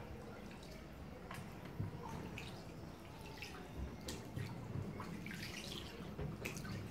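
Canal water lapping and dripping around a gondola as it passes under a stone bridge, with irregular small splashes.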